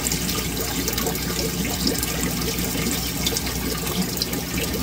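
Aquarium water bubbling and splashing steadily at the tank surface from the aeration and circulation outlet, over a low steady hum.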